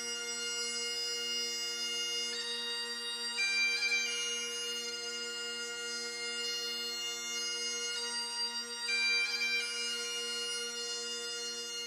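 Bagpipes playing a slow tune: long held chanter notes over steady, unbroken drones.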